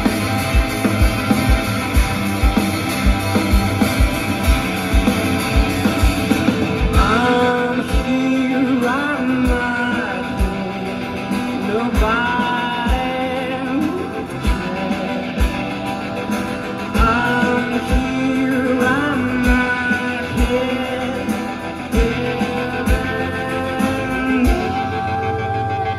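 A rock band playing live, with drums and guitar. A steady kick-drum beat leads, and from about seven seconds in, sliding, rising notes come in over it again and again.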